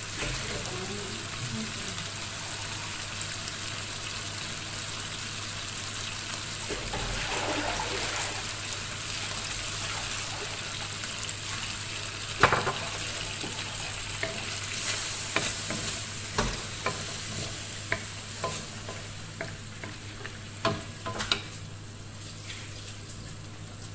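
Chicken pieces frying in their own juices in a wok, sizzling with a steady hiss. Sharp crackles and pops come more often in the second half, the loudest about halfway through.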